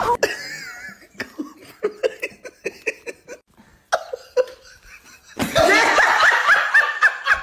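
People laughing, in short scattered bursts at first and then loud, continuous laughter for the last two seconds or so.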